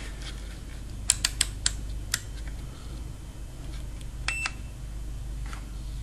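Refrigerator compressor with a burnt winding, powered on its run winding only, giving a steady low hum while stalled: it does not start and draws about 8.6 amps. Several sharp clicks about a second in as a clamp meter is closed around the wires, and a short electronic beep about four seconds in.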